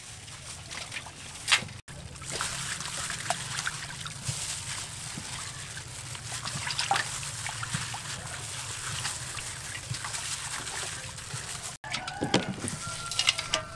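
Water sloshing and splashing in a metal basin as a whole raw chicken is rubbed and rinsed by hand, with irregular small splashes and trickles.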